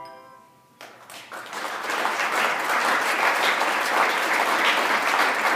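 The last handbell chord stops about a third of a second in, there is a brief hush, and then the audience starts applauding about a second in, swelling within a second to steady, loud clapping.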